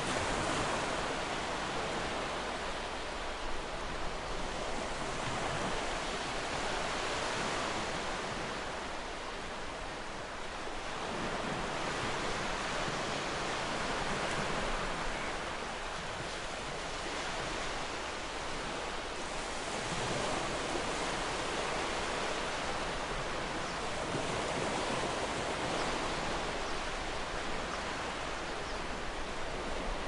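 Ocean waves breaking gently on a shore: a steady surf wash that swells and eases every five or six seconds.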